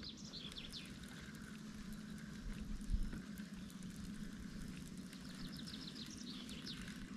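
Faint outdoor ambience: small birds chirping in short, high, falling calls, in a few scattered bursts, over a faint steady low hum, with one soft knock about three seconds in.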